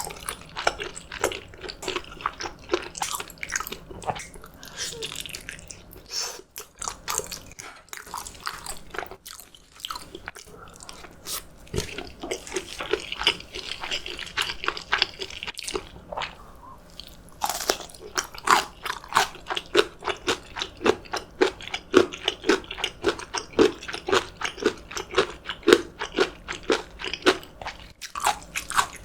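Close-miked eating: a person biting, crunching and chewing food, settling into a steady chewing rhythm in the second half.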